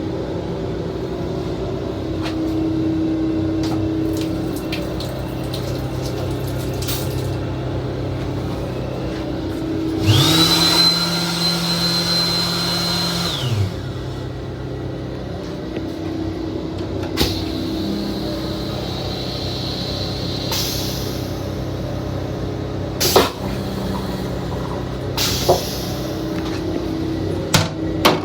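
Steady hum of an M7 railcar's running equipment heard from inside the car's restroom. About ten seconds in, a motor whirs up to a high whine with a hiss, runs for about three and a half seconds and winds down; a few sharp clicks follow near the end.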